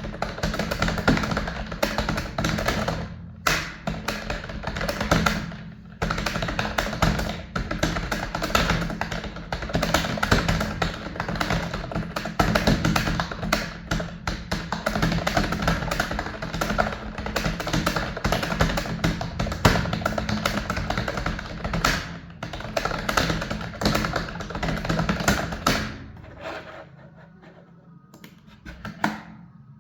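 Rapid computer keyboard typing, with continuous clicking keystrokes, over background music. The typing stops near the end.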